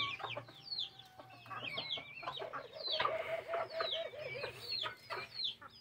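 Aviary birds chirping: many short, high chirps, each dropping in pitch, overlapping one another, with a steadier lower note through the middle.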